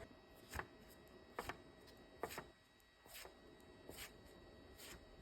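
Near silence, broken by about six faint, short taps or rustles spaced through it.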